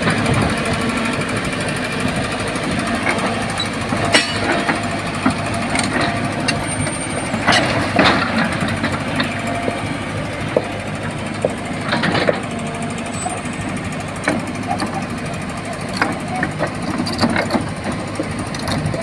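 Hydraulic excavator's diesel engine running steadily, with repeated sharp metallic clanks and knocks from the machine at work.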